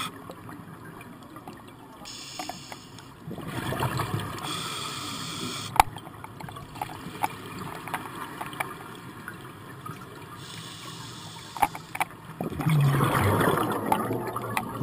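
A scuba diver's exhaled air bubbling out of the regulator underwater, heard muffled through the camera housing, in two bursts: about three seconds in and again near the end. A few sharp clicks fall in the quieter stretch between.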